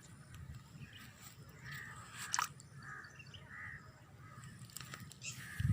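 Faint bird calls: a few short, harsh calls about two to four seconds in, over a low steady background rumble.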